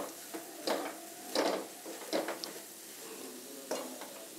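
A spatula scraping and stirring a crumbly mix of roasted peanuts and almond powder in ghee around a metal kadhai, in several strokes roughly a second apart.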